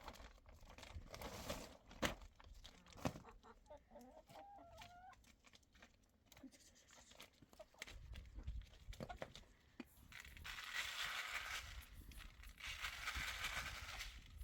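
Chickens clucking, with a short wavering call about four seconds in, after a few sharp knocks in the first seconds.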